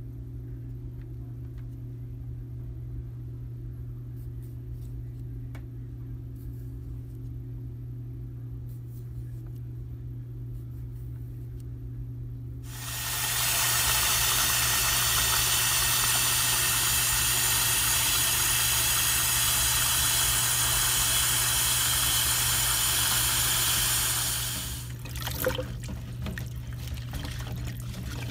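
A steady low hum with a few faint clicks, then about 13 seconds in a kitchen tap comes on full, running into a bowl of asparagus spears in a steel sink for about 12 seconds before it is turned off. After that, light splashing as hands swish the spears in the water.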